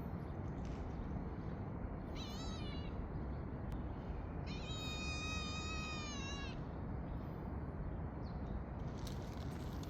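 A street cat meowing twice over steady low background noise: a short meow that bends in pitch about two seconds in, then a long, high meow of about two seconds near the middle.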